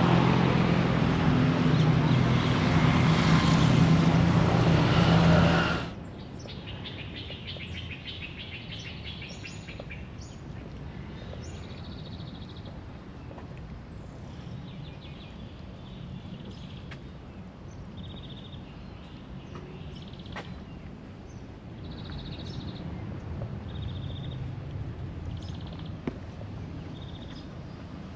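Loud traffic noise with an engine's steady low hum for about six seconds, then a sudden cut to a quieter outdoor background where birds chirp, short high calls repeating every second or two.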